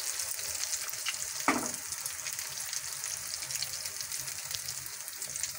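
Omelette mixture of beaten eggs and chopped vegetables sizzling with a steady crackle in a little oil over low heat in a non-stick frying pan, while a spoon spreads it out. One sharp knock about a second and a half in.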